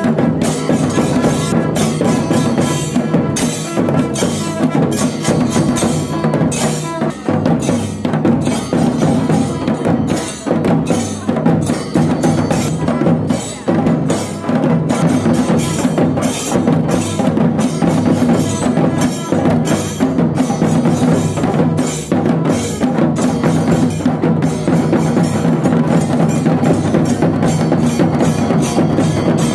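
Ensemble of large cylindrical festival drums beaten with sticks in a fast, continuous rhythm.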